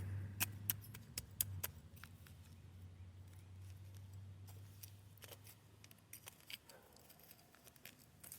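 Faint scattered clicks and light taps of hand work with tools and materials, most of them in the first second and a half, over a low hum that fades out about halfway through.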